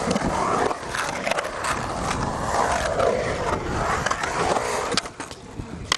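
Skateboard wheels rolling on a concrete bowl: a continuous roar that rises and falls as the rider carves the walls, with a few sharp knocks.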